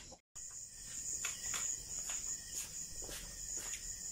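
Crickets chirping steadily, with a few faint short clicks about every half second.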